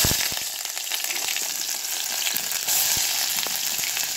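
Chopped onion sizzling in hot olive oil: a loud, steady frying hiss with scattered small crackles and pops.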